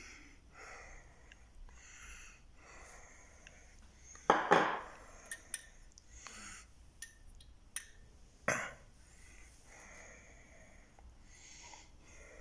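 Faint breathing close to the microphone, coming about once a second, with two louder short sharp noises about four and eight and a half seconds in and a few small clicks between them.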